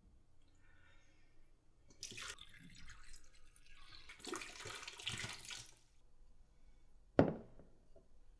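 Liquid poured from a glass bottle splashing into a stainless steel sink drain, in a short spell and then a longer one of about a second and a half. Near the end, one sharp clunk as the glass bottle is set down on a hard surface, the loudest sound.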